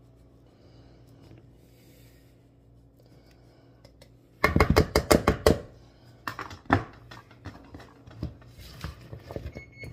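Parmesan grated on a hand-held microplane over a plastic bowl: soft rasping strokes, then about halfway through a quick burst of loud, sharp knocks and clatter, followed by scattered lighter clicks.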